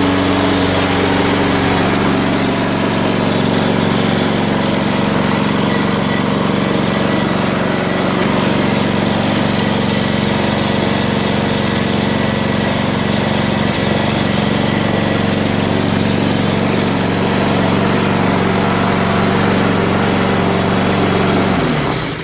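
Old Honda lawn mower's single-cylinder four-stroke engine running steadily after a cold start, a long-unused engine helped into life with fuel squirted down the bore and its air filter off. It winds down and stops near the end.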